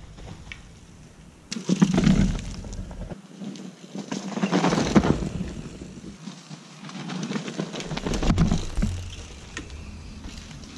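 Mountain bike ridden past close by on a dirt forest trail three times, tyres rolling and skidding over dirt and leaves with the bike rattling, each pass swelling and fading.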